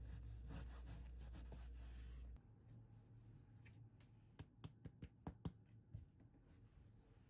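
Chef's knife sawing through a crusty baguette on a wooden cutting board, a dry rasping crunch for the first two seconds or so. Then comes a quick run of light taps and knocks on the board as the bread is moved and set down, about four to five and a half seconds in.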